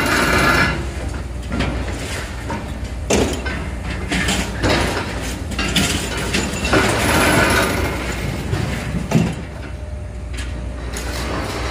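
Two long-reach demolition excavators running steadily, with irregular crunching and clanking every second or two as their hydraulic crusher jaws break up the building's concrete and steel.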